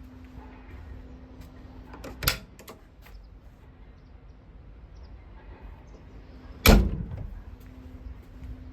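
Two sharp bangs about four seconds apart on a Komatsu PC56 mini excavator, the second the loudest and ringing briefly, over a low steady rumble and hum.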